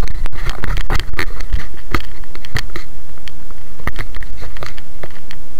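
Handling noise on a handheld action camera's microphone: a loud, steady rumble with irregular knocks and rubbing as the camera is moved and turned around.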